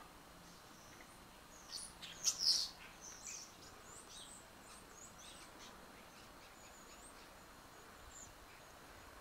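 Songbirds chirping: a burst of loud, high chirps about two seconds in, then scattered shorter chirps and thin whistles until near the end.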